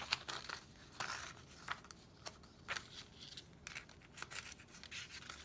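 Sheet of paper rustling and crinkling in the hands as a scalloped-edge ribbon is pulled through its punched slits, with irregular short scrapes and ticks.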